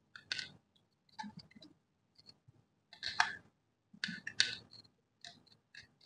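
Faint, scattered clicks and scrapes of a screwdriver working the terminal screws of a plastic double-pole switch while an earth wire is fitted, about five short handling sounds spread through.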